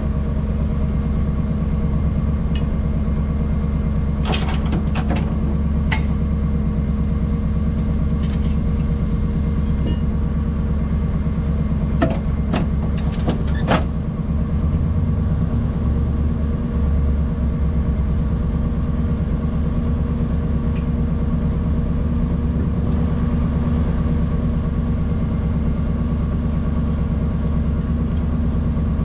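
Off-road wrecker's engine idling steadily, with a few short metallic clanks from the tow rigging.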